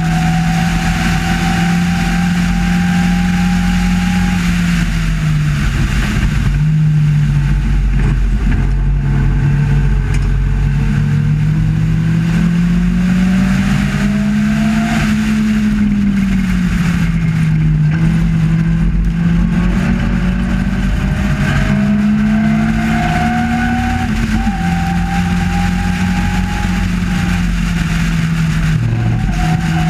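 Sports-racing car engine heard from inside the open cockpit at racing speed, its pitch climbing slowly under throttle and dropping back a few times as the driver changes gear or lifts, over a steady rushing noise.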